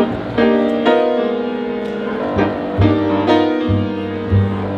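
Live jazz trio of saxophone, grand piano and plucked upright bass playing, with held melody notes over the piano. From about halfway through, the upright bass notes come in strongly at a steady pace.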